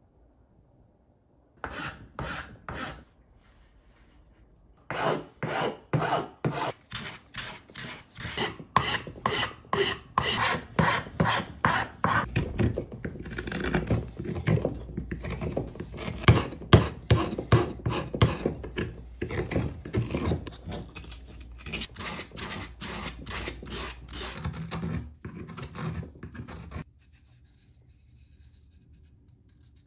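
Hand rasp scraping the wood of a carved spoon, shaping it: a short run of strokes, then steady back-and-forth strokes, two to three a second, that stop near the end.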